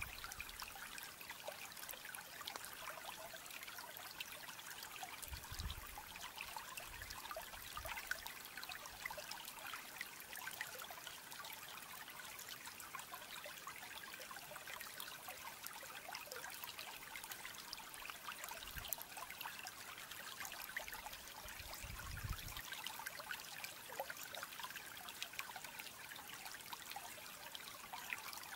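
Faint, steady trickling like running water, with tiny ticks through it and a few soft low rumbles.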